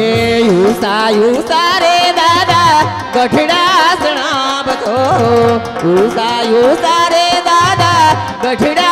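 A singer's voice in an ornamented, gliding folk melody, with hand-drum beats and keyboard accompaniment.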